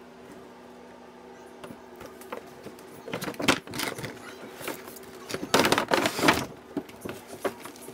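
Hands handling and opening a toy drone's retail box, cardboard with a clear plastic window and tray: scattered clicks, scrapes and crinkles that build from about three seconds in and are loudest near the end, over a faint steady electrical hum.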